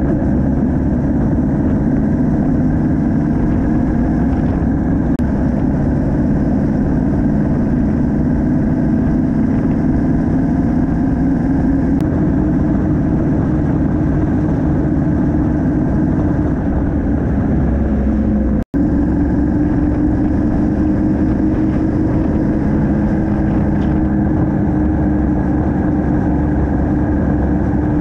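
Yamaha MT-07's parallel-twin engine running steadily at cruising speed, mixed with wind and road noise. The sound cuts out briefly about two-thirds of the way through.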